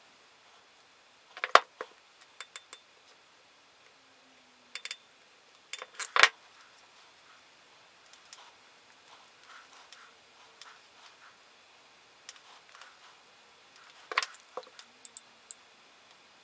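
Small tools and wire being handled at a workbench: crimping pliers and insulated butt connectors clicking and rattling lightly. The clicks come in short clusters, the loudest about six seconds in, with a quiet stretch before a last few near the end.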